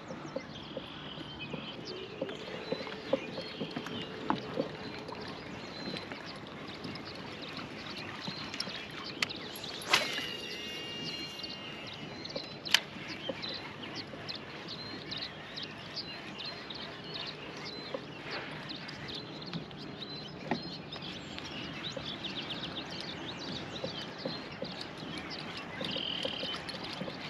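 Outdoor ambience by the water: wildlife calling in short chirps, over a steady background hiss, with scattered small clicks. Two sharp knocks come about ten and thirteen seconds in, the first with a brief ringing tone after it.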